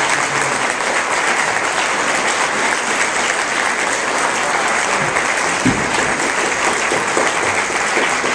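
Audience applauding, with a single low thump about two-thirds of the way in.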